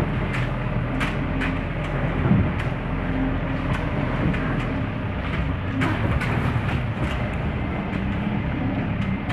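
Vehicle engine running at low speed as it crawls over a rutted, muddy dirt track, heard from inside the cab, with frequent short knocks and rattles as it jolts over the bumps.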